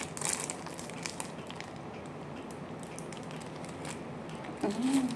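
Thin plastic bag crinkling and crackling as wet vegetable stew is squeezed out of it onto rice, in scattered small bursts. Near the end a short hum from the woman.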